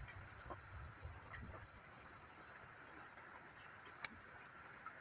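Night-time chorus of crickets trilling steadily at a high pitch, with one sharp click about four seconds in.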